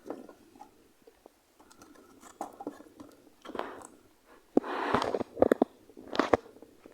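Handling noise: irregular sharp clicks and short rustling scrapes, busiest in the second half.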